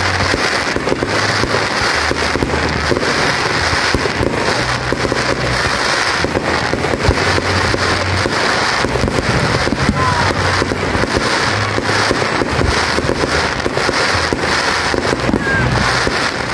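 Aerial fireworks bursting: a loud, unbroken crackle of countless small pops from the shells' crackling stars.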